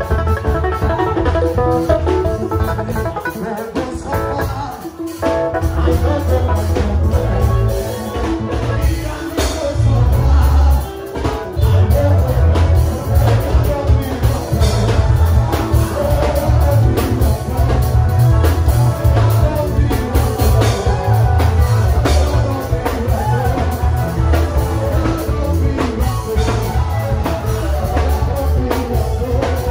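Gospel band music with guitar, bass and drum kit playing and a voice singing; the bass and drums drop out briefly twice, about five and eleven seconds in.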